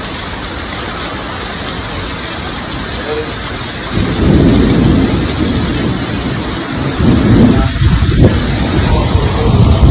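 Heavy rain and wind from the back end of a tornado: a steady downpour, with louder low gusts about four seconds in and again around seven seconds.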